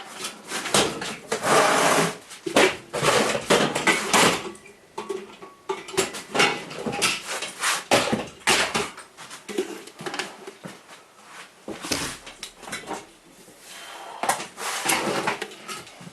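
Irregular handling noises while the replacement laptop LCD panel and its parts are worked with by hand: brief rustling swishes and light clicks and taps, in uneven bursts.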